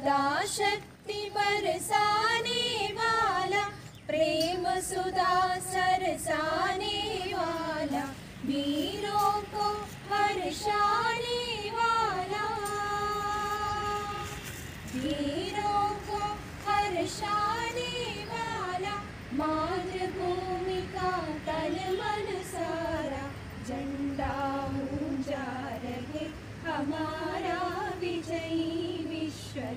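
A female voice singing a slow, unaccompanied melody with long held notes, pausing briefly between phrases.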